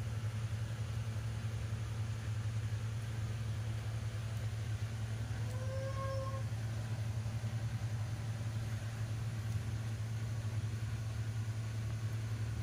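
Steady low machine hum, with one short pitched squeak about six seconds in.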